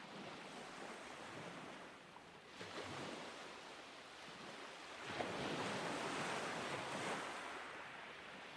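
Ambient sea: waves washing in and out with light wind. A smaller surge comes about two and a half seconds in, and a bigger, louder one from about five seconds that ebbs away near the end.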